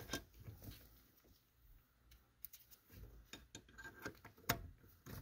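Faint, scattered clicks and taps of small plastic parts being handled and fitted back into place by hand.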